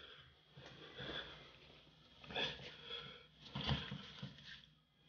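A few faint sniffs and breaths, spaced a second or so apart, from a person sniffling after eating food doused in very hot sauce.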